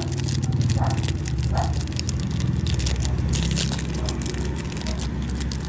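Low rumble of passing street traffic, with crackly clicks and rustles of handling close to the microphone.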